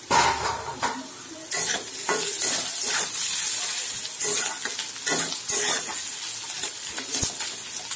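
Sliced onion, carrot and capsicum sizzling in oil in a steel kadai, stirred and tossed with a spatula in short scraping strokes; the hiss grows louder about a second and a half in.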